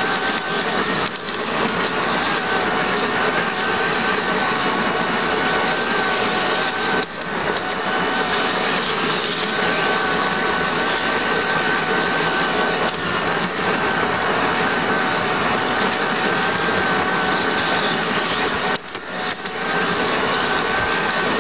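Model train running, heard close-up from on board: a steady grinding rumble of wheels on the track with a whine from the locomotive's electric motor and gears. It drops out briefly a few times.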